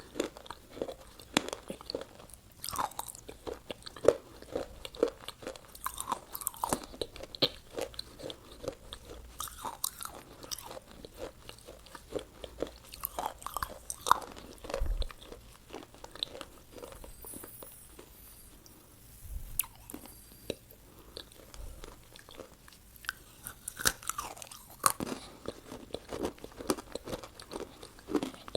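Close-miked eating of McDonald's fast food: crunchy bites and chewing, irregular crackles and clicks that ease off for a few seconds in the middle.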